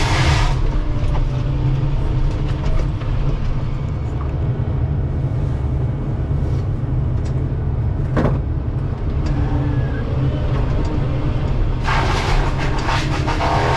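Excavator running under steady load with a Shearex VM-40 drum mulcher head. Harsher grinding bursts come at the start, about eight seconds in, and for the last two seconds, as the mulcher teeth chew into wood.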